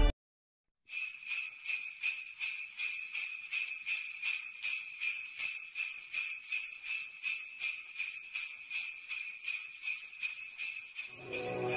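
Sleigh bells shaken in a steady rhythm, about two to three shakes a second, starting after about a second of silence. A lower-pitched sound joins them near the end.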